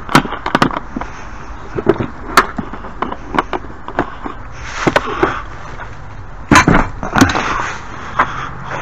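Small hardware being rummaged through and handled: irregular clicks, knocks and clatter of bolts, anchors and parts, with a louder clatter about two-thirds of the way through.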